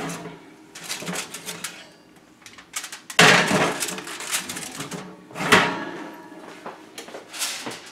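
Foil-covered metal baking pans scraping and knocking against the wire oven racks as they are slid in and out of the oven. There are several separate scrapes and clanks, the loudest about three seconds in and again about five and a half seconds in.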